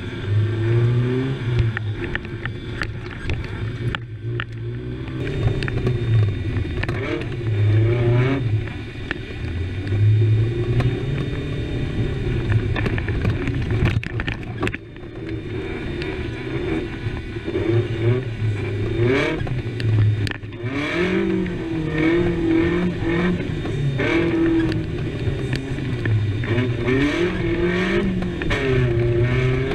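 Rally-prepared Suzuki Samurai's engine heard from inside the cabin at full stage pace, revving up and dropping back again and again through gear changes.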